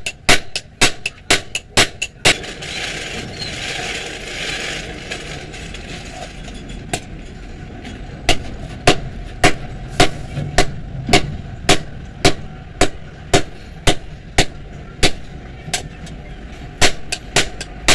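Hand hammer striking a red-hot knife blade on a small steel anvil stake: sharp ringing blows, about three a second at first. They break off for a few seconds, with a soft hiss in the pause, then resume at a steady two blows a second.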